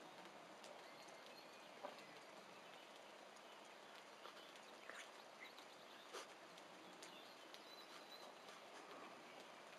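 Near silence: a faint steady outdoor hiss with a few soft ticks and scrapes from dogs digging in loose soil.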